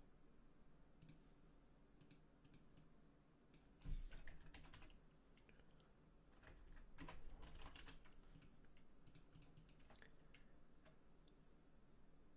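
Faint computer keyboard typing: scattered key clicks, with two short flurries about four and seven seconds in.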